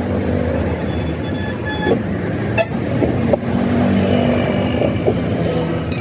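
Motor vehicle engine running steadily, with a few short horn-like toots and several sharp clicks.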